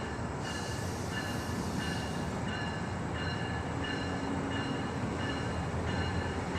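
MARC commuter train led by an MP36 diesel locomotive rolling in over a switch: a steady rumble, with a bell-like ringing that repeats about every two-thirds of a second.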